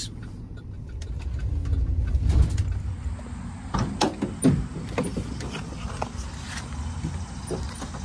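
Low, steady rumble of a car heard from inside the cabin, then a series of sharp knocks and clicks from a little before halfway on.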